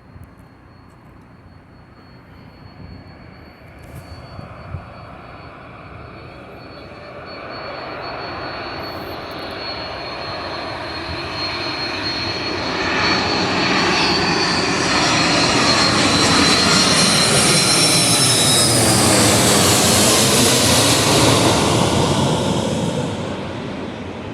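Twin jet engines of an Airbus A330-300 airliner passing low overhead, most likely on approach to land. The sound builds slowly from a distant high whine to a loud peak in the second half, the whine dropping in pitch as the aircraft goes by, then fades near the end.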